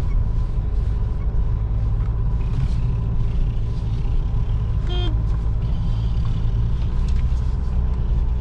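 Mitsubishi L200 pickup's diesel engine and drivetrain running with a steady low rumble, heard inside the cab as the truck crawls in a low gear over a snowy, slushy road.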